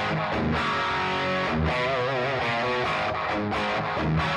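Overdriven electric guitar played through a cranked Marshall DSL20C valve combo, attenuated by a Universal Audio OX Amp Top Box: a riff of repeated low chugging notes under held higher notes that waver in pitch.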